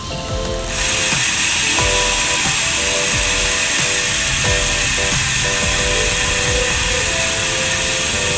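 Bicycle rear hub's ratchet freewheel buzzing steadily as the wheel coasts, starting about a second in, over background music.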